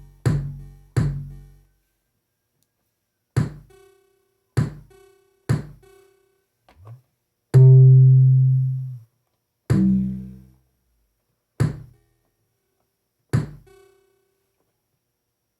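Synthesized kick drum and bass hits from a 1010music Nanobox Razzmatazz drum synth, about ten separate strikes each with a sharp click and a fast decay, with a longer, loudest bass note held for about a second and a half near the middle. The bass sounds carry a buzzy fuzz that the owner says comes with every synthesized bass sound on this unit and cannot be filtered out.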